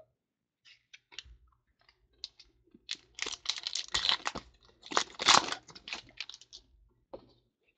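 A foil pack of 2014 Panini Certified football cards being torn open and crinkled, with its cards pulled out. Scattered light clicks and taps from handling come first, then crackling wrapper noise that is loudest about five seconds in.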